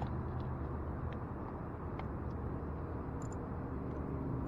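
Steady outdoor background of river current rushing, with a low hum of distant city traffic and a few faint ticks.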